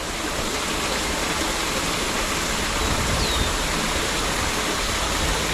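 Steady rushing of flowing water, even and unbroken, with one brief high chirp about three seconds in.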